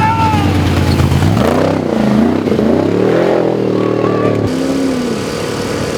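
Off-road race vehicle engines revving hard, the pitch climbing and dropping several times as the throttle opens and closes. The sound changes abruptly about four and a half seconds in.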